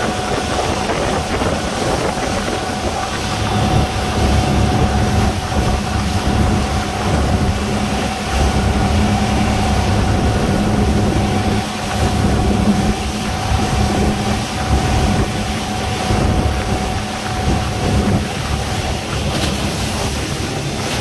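A motorboat running at speed on open sea: a steady engine drone with a constant whine over it, mixed with wind on the microphone and water noise.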